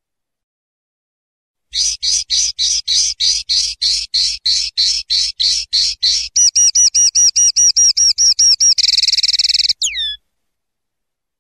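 Common linnet singing one phrase, starting about two seconds in: about fourteen buzzy repeated notes at about three a second, then a run of quicker, clearer notes, a fast trill, and a final falling whistle.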